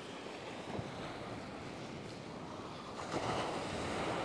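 Small surf washing in on a sandy beach, a steady wash that swells louder about three seconds in as a wave comes up the shore.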